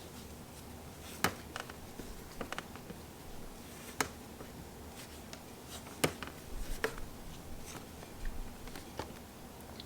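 Light handling of a phone and its screen-protector cleaning kit: a few scattered sharp clicks and taps, the clearest about a second in, at four seconds and at six seconds, over quiet room tone.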